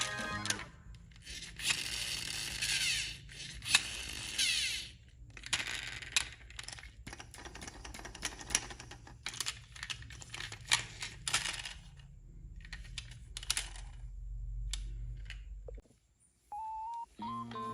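Small electric motor and plastic gearing of a radio-controlled model machine at work: a whirring rush for about four seconds near the start, then a long run of clicks and rattles over a low steady hum.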